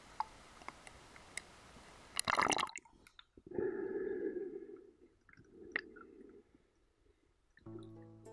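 Water lapping and splashing at a camera held at the lake surface, then a short loud splash as it goes under, followed by muffled underwater rushing in two stretches. Music starts near the end.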